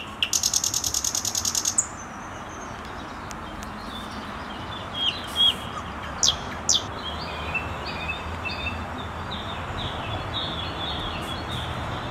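Songbirds calling in the open: a rapid high trill of about nine pulses a second that lasts about a second and a half near the start, a few sharp falling chirps about five to seven seconds in, then a run of short repeated high notes, over a steady background hiss.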